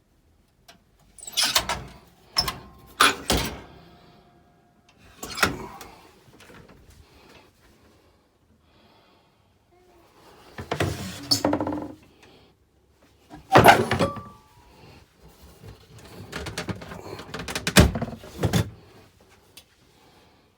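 Doors being opened and shut inside an Elddis Hurricane GTX caravan: a series of irregular knocks and thunks, with a longer, noisier stretch a little past halfway.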